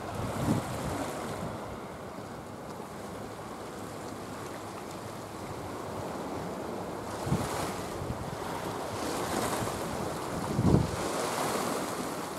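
Seawater lapping against a concrete harbour wall, with wind rumbling on the microphone; a few brief louder rumbles of wind come and go, the loudest near the end.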